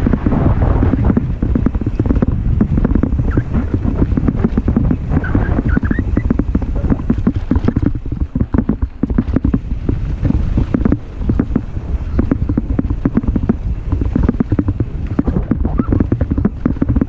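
Wind buffeting the microphone over the rumble of knobby tyres on a dirt singletrack, with the mountain bike rattling constantly as it runs over the rough ground at speed.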